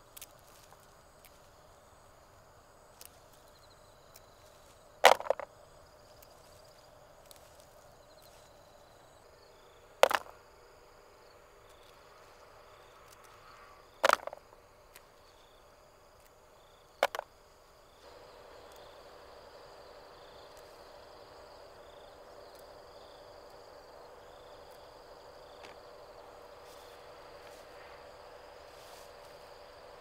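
Four sharp knocks a few seconds apart, several of them doubled, over a faint steady background that gets a little louder near the end.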